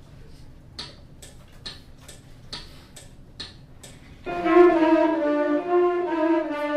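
Metronome clicking about twice a second as a count-in, then a beginner class of alto and tenor saxophones coming in together a little over four seconds in, playing a line of held notes.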